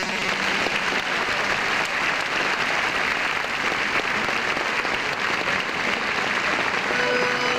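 Large audience applauding, a dense steady clapping that starts as the band's music stops. Near the end the band starts playing again.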